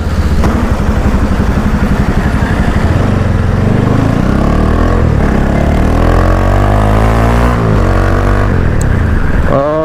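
Motorcycle engine heard from the rider's seat while riding. The revs climb steadily from about three seconds in, drop sharply near the eighth second, then carry on.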